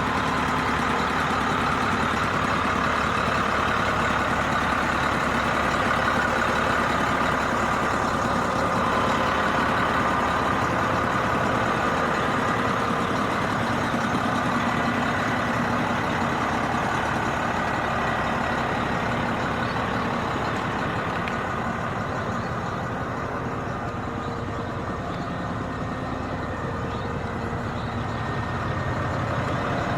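Heavy diesel engine of earth-moving equipment running steadily.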